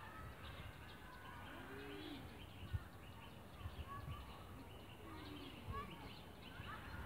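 Faint outdoor ambience of birds chirping, with distant voices now and then.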